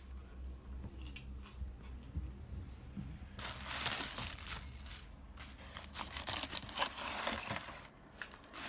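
Plastic bubble wrap crinkling and crackling as a hand pulls it out of a cardboard box. A few faint crackles come first, then about four seconds of loud, dense crinkling, then a few last crackles near the end.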